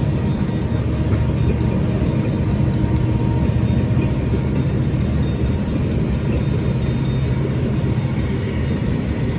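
Freight train tank cars rolling past over a grade crossing: a steady rumble and rattle of steel wheels on the rails.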